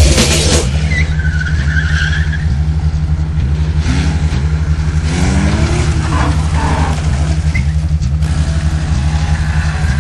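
Car engine running steadily, with a short tire squeal about a second in.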